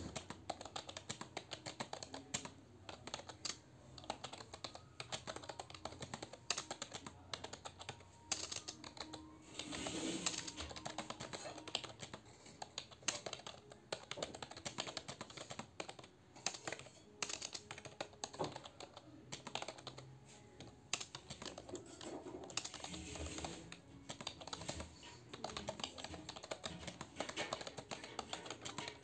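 Someone touch-typing fast on a computer keyboard: a quick, uneven run of keystroke clicks, several a second.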